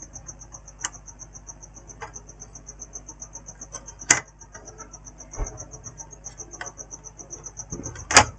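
Sharp clicks and knocks as a laptop is handled and screws are fitted, the loudest about four seconds in and just before the end, over a steady high-pitched chirping of about eight pulses a second.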